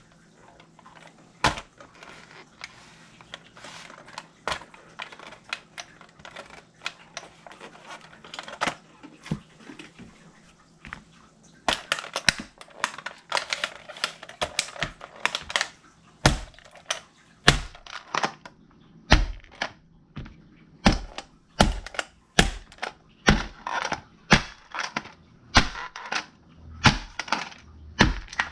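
A small plastic radio being crushed under heavy mountaineering boots. Scattered sharp cracks and creaks of plastic at first, a stretch of dense crackling and crunching about twelve seconds in, then repeated heavy stomps, a little more than one a second, each a low thud with a crack of breaking plastic.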